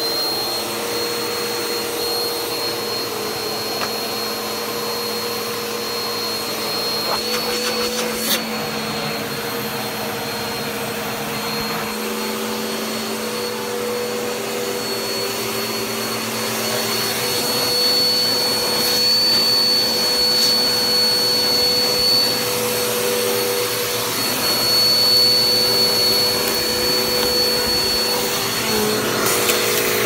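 Upright vacuum cleaner running steadily over carpet, its motor giving a high, even whine. A brief click about eight seconds in, and the sound grows a little louder in the second half.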